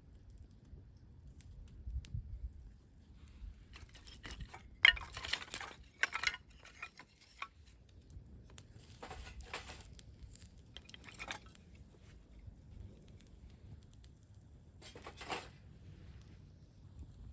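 Several short bursts of rustling and crinkling handling noise, the loudest about five seconds in, over a low rumble of wind on the microphone.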